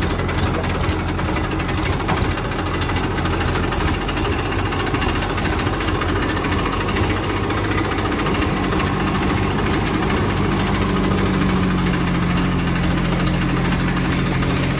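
Massey Ferguson tractor's diesel engine running steadily under way, heard from the driver's seat beside the exhaust stack. Its pitch shifts about two thirds of the way in.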